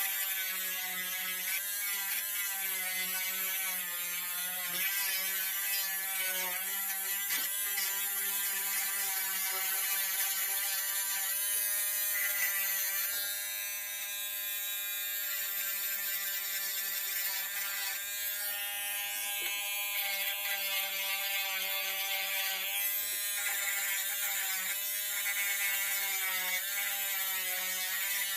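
A small electric motor, of the kind in a handheld rotary tool, running continuously, its pitch wavering a little throughout.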